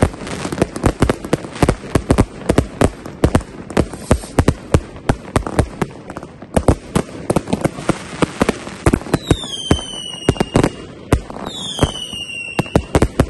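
Fireworks going off in a dense, continuous volley of sharp bangs and cracks, several a second. Two high whistles that slide down in pitch cut through, about two-thirds of the way in and again near the end.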